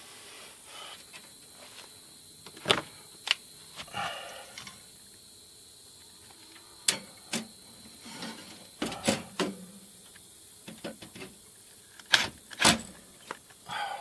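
A dozen or so scattered sharp clicks and knocks as a cordless drill and small screws are handled against the side panel of a window air conditioner.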